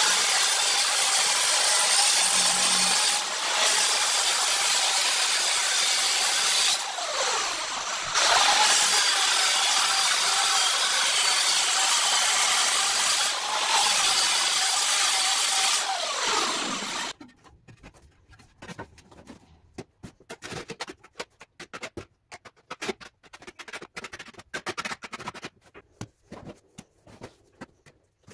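Large angle grinder with a tile-cutting disc cutting through a ceramic tile along a marked line, loud and steady, with a brief let-up about seven seconds in. It winds down about seventeen seconds in. Quieter irregular scrapes and taps follow: a trowel spreading tile adhesive.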